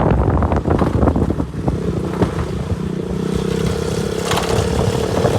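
A motor vehicle's engine running, with rough rumbling over the first second or so, then a steady hum.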